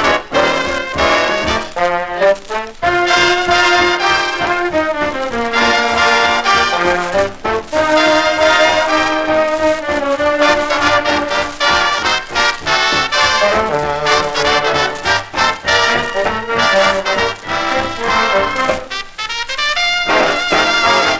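Big-band music led by brass, with trumpets and trombones playing held and moving phrases over a steady beat.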